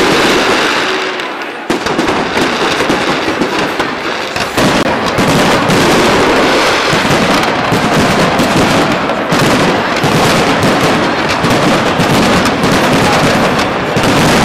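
Aerial fireworks in a dense, continuous barrage of bursting shells and crackle. A sharp volley breaks in just under two seconds in, and the barrage gets heavier about four and a half seconds in.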